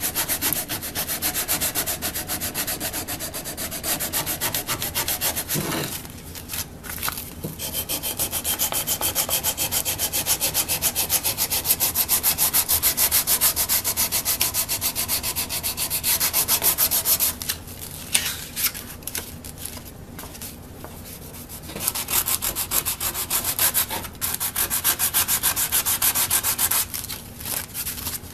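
Sandpaper rubbed by hand in quick back-and-forth strokes over an old wooden hand-saw handle, along the grain, taking off loose old finish and paint. The strokes pause briefly a few times, longest a little past the middle.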